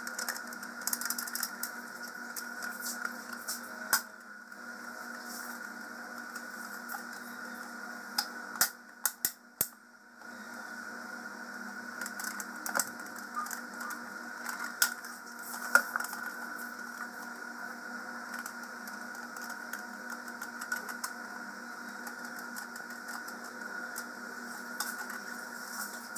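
Plastic parts of a Jura Z6 coffee machine's brewing unit clicking and rattling as they are handled and fitted together, in scattered clicks with a quick run of four about a third of the way in, over a steady background hum.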